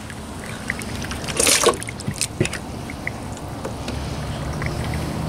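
Water trickling and splashing as the slimy innards of a split sea cucumber are rinsed and wiped off a plastic cooler lid, with a louder wet splash about a second and a half in and a few small clicks after it.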